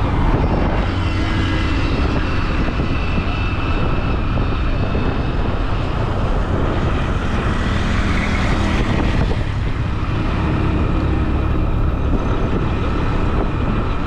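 Steady rumble of a moving vehicle's engine and road noise, heard from on board.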